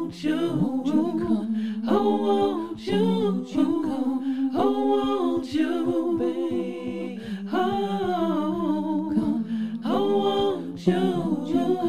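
Unaccompanied vocal group singing a church jingle without clear words, humming phrases over a steady low held note.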